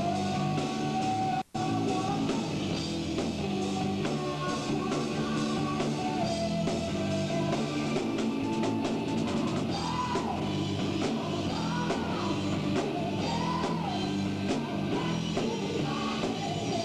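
Live rock band playing: distorted electric guitars and a drum kit, with bending guitar lines near the middle. The sound cuts out for an instant about a second and a half in.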